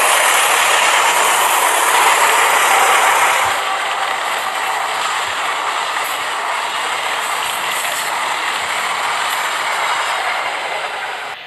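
Train running past with a steady rattling rail noise that eases a little about three and a half seconds in.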